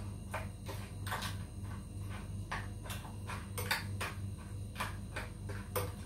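A spoon knocking and scraping against an earthenware pot of soup as it is stirred: irregular sharp clicks, a few a second, over a steady low hum.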